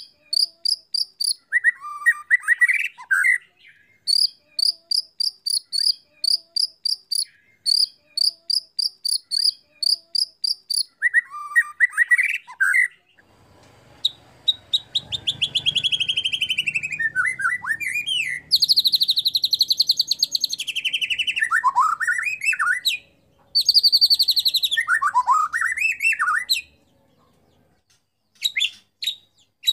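White-rumped shama (murai batu) singing. For about the first half there are runs of rapid, evenly spaced high cricket-like chirps, several a second, broken by short lower warbles; about halfway in come long, loud phrases of fast trills and falling whistles, ending with a few chirps near the end.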